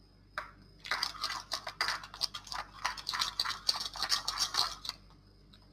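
Slime being squished and worked by hand: a quick, irregular run of small sticky clicks and pops for about four seconds, starting about a second in.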